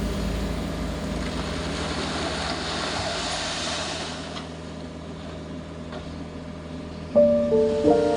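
A large engine running steadily with a low hum, slowly fading. Chiming mallet-percussion music comes in about seven seconds in.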